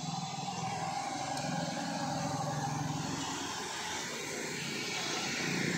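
Street traffic: motorcycles and cars passing along a city road, a steady hum of engines and tyres.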